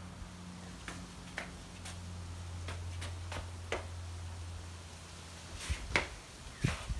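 Scattered sharp clicks and taps of hand tools and parts from a tyre puncture repair kit being handled, the loudest few near the end, over a steady low hum.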